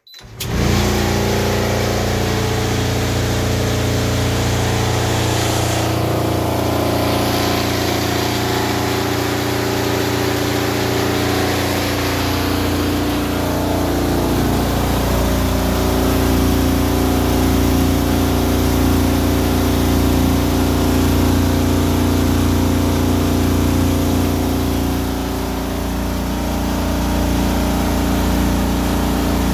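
Frigidaire Affinity dryer (AEQB6000ES0) switching on about a quarter second in, then running with a loud, steady hum and vibrating rumble. The noise is the sign of a faulty blower assembly and motor; the owner thinks the blower fan alone was to blame.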